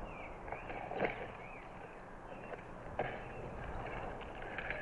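Quiet outdoor background with a few faint bird chirps, a soft knock about a second in and another about three seconds in, and a quick run of light taps near the end.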